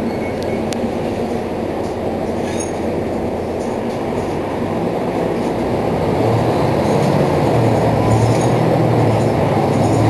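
Mercedes-Benz Citaro C2 city bus running, a steady mechanical rumble. Its low engine drone grows louder from about six seconds in.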